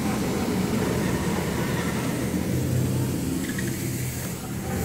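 Low, steady rumbling drone of an ambient soundscape played over loudspeakers, with no sudden events.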